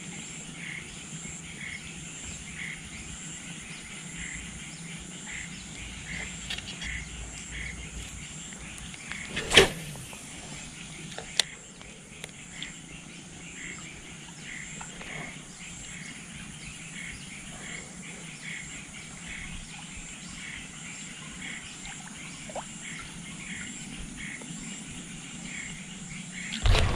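A steady chorus of insects, with a high pulsing trill and a chirp repeating a little under twice a second. A sharp knock sounds about ten seconds in, and a smaller click follows a couple of seconds later.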